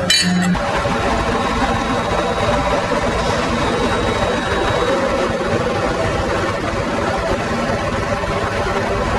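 Steady drone of running machinery: a constant low hum with an even noise over it, no strokes or knocks.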